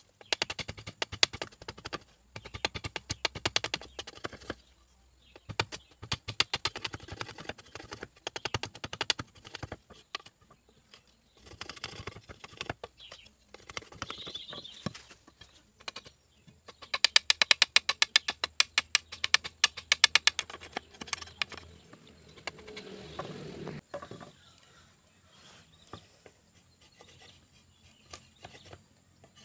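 Machete blade chipping wood out of a notch in a wooden stick: runs of quick, short knocks with pauses between them, the fastest and loudest run about two thirds of the way through.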